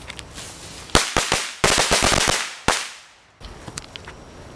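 Consumer fireworks going off: a quick run of sharp firecracker pops about a second in, running into a loud crackling burst, then one last loud pop that fades away.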